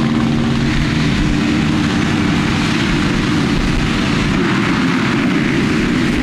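A full gate of motocross bikes revving at once, many engines held at high revs together on the start line. Near the end they launch off the gate.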